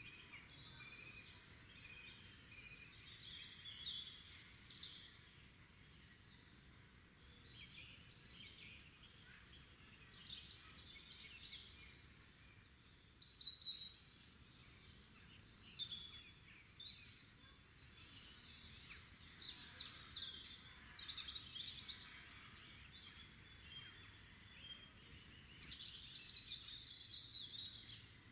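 Several birds singing and calling in overlapping short chirps and trills, faint, over a steady low background hiss. There are louder calls about halfway through and near the end.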